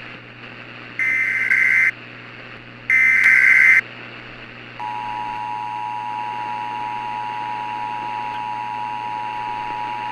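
Emergency Alert System tones announcing a civil danger warning. There are two one-second bursts of the SAME header's buzzy digital data tones, then about five seconds in the steady two-tone EAS attention signal starts and holds.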